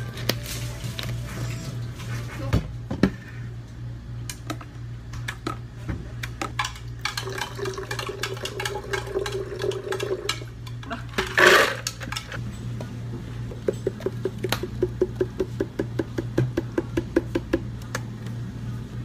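Drink-making behind a cafe counter: plastic cups, lids and a blender jug clicking and knocking as they are handled, over a steady low hum. There is a short loud rush about eleven and a half seconds in, and a quick even run of ticks near the end.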